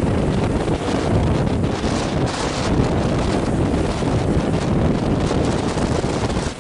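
Wind buffeting the microphone: a steady, loud rushing rumble.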